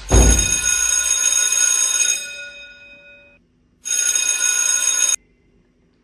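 Phone ringtone ringing twice, each ring a chord of several steady tones. The first ring fades away; the second cuts off suddenly as the call is answered.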